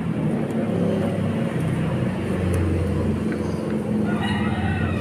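Steady low hum of a motor vehicle engine running, with no sharp events.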